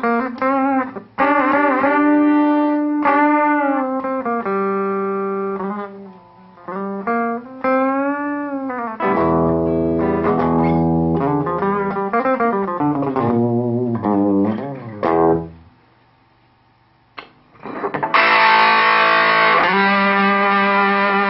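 Electric guitar played through a homemade Big Muff Triangle fuzz pedal: long sustained distorted single notes with string bends and vibrato, a brief pause about three-quarters through, then a loud fuzzed chord ringing near the end.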